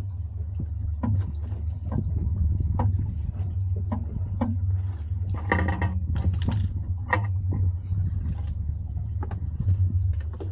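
Fishing boat's engine running with a steady low drone, with scattered knocks and clicks and a brief hissing rush about five and a half seconds in.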